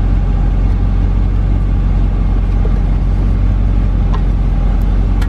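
Chevrolet 283 small-block V8 idling steadily, a low even rumble inside the car, with the air-conditioning blower running on its lowest speed.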